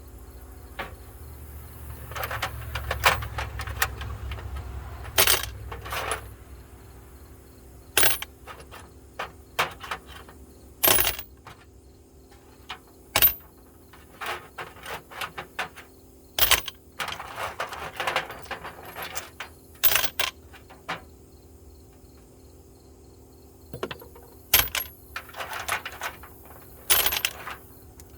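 Metal sockets clinking and rattling as they are handled and set down among other sockets, with sharp clicks at irregular intervals and a few short bursts of rattling.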